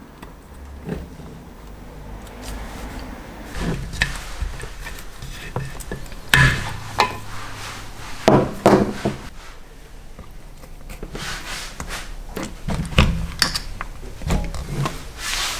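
Handling sounds of steel brake booster housings being worked on a wooden workbench: scattered knocks, clicks and rubbing as rubber vacuum fittings and a bung are pulled out and pushed into the booster ports, with a few louder knocks partway through.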